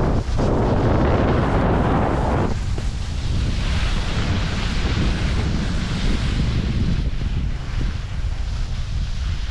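Skis scraping and hissing through soft spring snow, over a steady low rumble of wind on the microphone. The scraping is heavy and rushing for the first couple of seconds over the bumpy snow, then thins to a lighter, higher hiss as the skis glide on smoother snow.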